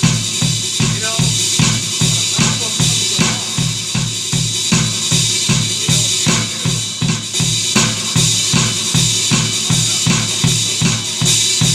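Roland V-Drums electronic drum kit played in a steady rock groove: bass drum at about four hits a second with snare backbeats and cymbals, heard through the kit's sound module.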